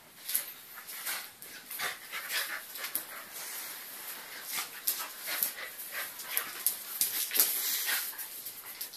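An adult Eurasier and a Eurasier puppy play-fighting: a run of short, quick, breathy scuffling and panting sounds, with soft dog whimpers.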